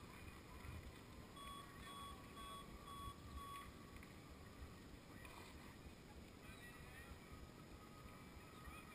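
Low, quiet rumble with a run of five short, evenly spaced beeps, about two a second, starting about a second and a half in.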